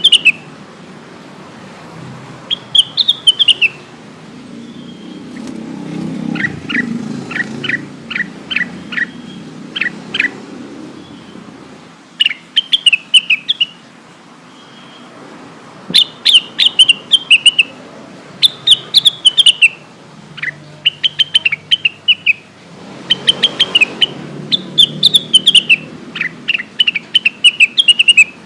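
Blue-winged leafbird (cucak wilis) calling: repeated phrases of quick, high chirps, each a second or two long, with short pauses between. A low rumble sits underneath.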